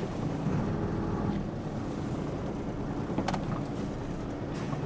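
Diesel engine of a truck heard from inside the cab, running steadily at low speed, with a single sharp click about three seconds in.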